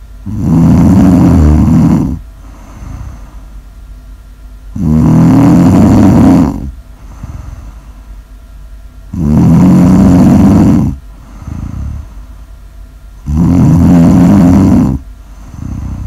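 A sleeping person snoring steadily: four long, loud snores about four seconds apart, with softer breaths between them.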